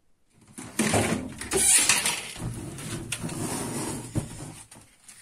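Wooden cupboard doors being handled and opened: a run of scraping and rustling with a few sharp knocks.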